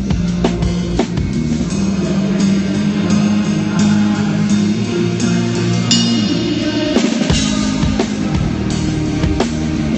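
Live rock band playing through a hall PA at a sound check: a drum kit keeping a steady beat over bass and guitar.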